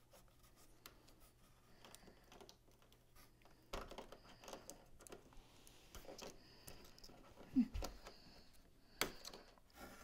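Quiet handling noise: scattered light clicks, taps and rustles from hands working at the bottom of a cardboard-covered TV on its stand, with a dull thump about seven and a half seconds in and a sharp knock about a second later.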